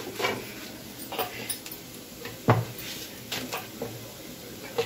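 Scattered clinks and knocks of pots, plates and utensils being handled, about half a dozen, the loudest about two and a half seconds in.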